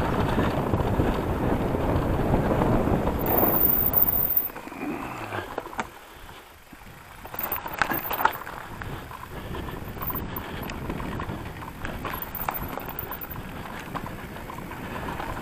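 E-mountain bike riding over rough trail ground: tyre rumble with rattling and knocks from the bike. It is heavy for the first four seconds, then quieter with scattered clicks.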